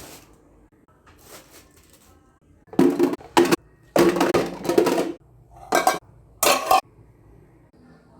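Dishes and food containers clattering and clinking in several loud bursts, as they are handled and set down while a fridge is cleared out.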